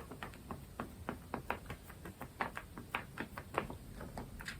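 Light, irregular taps and clicks of craft tools on paper and a tabletop, a few a second, as paint is worked onto a journal page.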